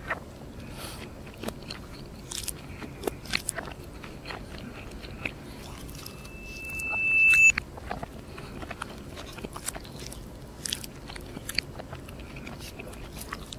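Close-up chewing and crunching of crispy fried chicken nuggets, with irregular crisp bites and mouth sounds. About six seconds in, a single steady high tone swells for about a second and a half and cuts off suddenly.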